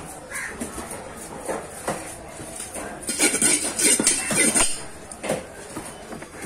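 Heavy fish-cutting knife knocking and scraping on a wooden chopping block in a string of sharp knocks, with a louder stretch of clattering and scraping about three seconds in.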